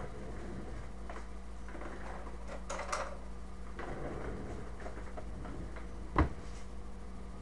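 Small carburetor parts and tools being handled on a workbench: scattered light clicks and rattles, with one sharp knock about six seconds in, over a steady low hum.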